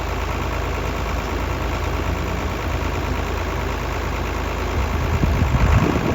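Tractor engine running steadily; in the last second or so the low rumble grows louder and uneven, with a few heavy low thumps.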